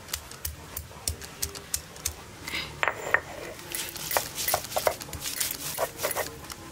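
Garlic cloves being crushed on a flat grinding stone with a hand-held cylindrical pestle: sharp knocks about three a second, then denser crunching and scraping from about two and a half seconds in.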